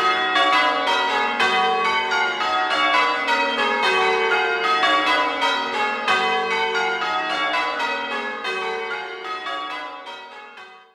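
Church tower bells being rung in changes: a quick, continuous run of overlapping bell strokes that fades away over the last few seconds.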